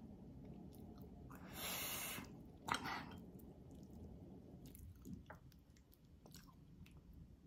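Quiet close-miked eating sounds of a person chewing beef rib, with faint wet mouth clicks. A louder noisy patch comes about a second and a half in, and a sharper one near three seconds.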